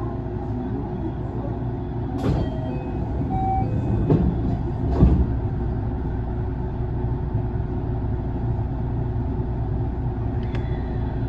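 JR West 207 series electric train standing before departure, its onboard equipment giving a steady low hum. A few short knocks sound about two, four and five seconds in, the last the loudest.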